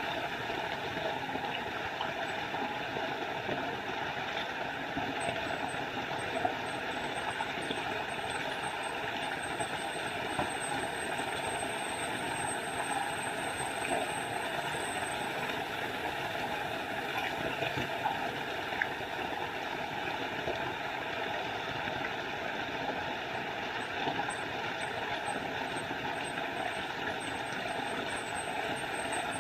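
Small forest waterfall: water falling and splashing steadily, without a break. A thin, very high, rapid trill sounds over it for long stretches, fading out about halfway through and returning near the end.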